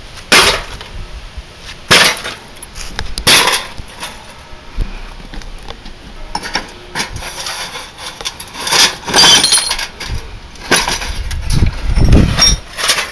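Hammer blows smashing the glass and inner parts of a broken Bosch CRT television, with glass shards clinking and clattering. There are about a dozen sharp hits, irregularly spaced a second or two apart.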